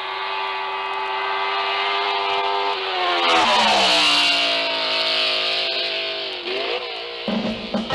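A car engine running at a steady pitch; about three seconds in the revs drop and the pitch slides down, then it climbs again near the end as a fuller low sound comes in.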